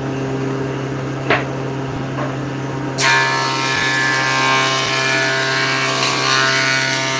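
Table saw running steadily with a low hum, and one short knock a little over a second in. About three seconds in the blade starts cutting a wooden board fed across the table, and the sound becomes much louder, a steady whining rasp.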